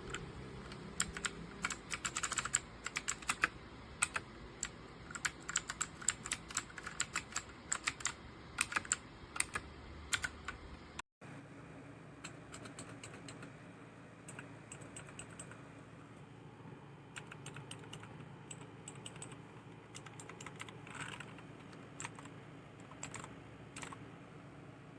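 Typing on a Gigaware Leaven K620 61-key mechanical keyboard: a run of quick key clicks for about ten seconds, then a brief cut to silence and a quieter stretch with only a few scattered keystrokes.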